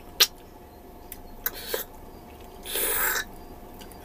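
Close-up eating sounds from a person sucking meat off a bone: a sharp mouth smack just after the start, a few small wet clicks, and a louder half-second breathy suck about three seconds in.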